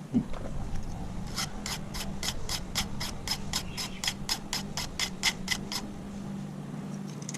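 Hand file rasping on a key blank in even strokes, about three or four a second for several seconds, taking down the cuts that show marks while impressioning a key. A single knock comes at the very start, with a steady low hum underneath.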